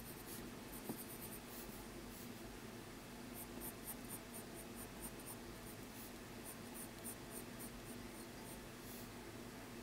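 Pencil sketching on paper: faint scratching in short, quick strokes that come in runs.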